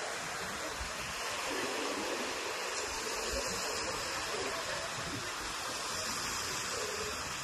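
Steady rush of sea surf washing up the beach, with no distinct breaks or impacts.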